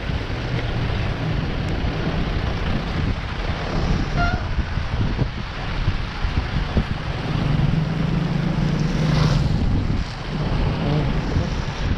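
Wind buffeting the camera microphone while cycling, a heavy steady rushing, with a low hum swelling briefly about eight seconds in.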